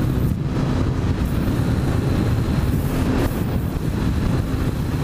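Heavy wind rushing over the microphone of a motorcycle at highway speed, around 80 on the speedometer, with the bike's engine running steadily underneath.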